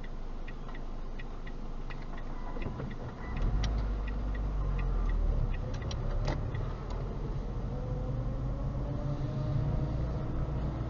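Car sound heard from inside the cabin. A light ticking runs about twice a second at first. About three seconds in, the car moves off, and engine and road rumble rise sharply, the engine note climbing as it accelerates.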